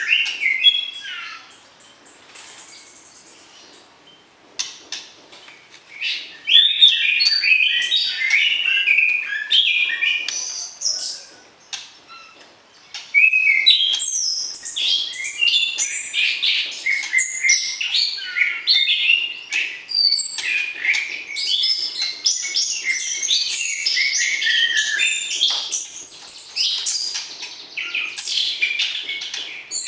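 White-rumped shama singing rapid, varied phrases of whistles and chatter. There are quiet gaps about two seconds in and again around eleven seconds, then nearly unbroken song.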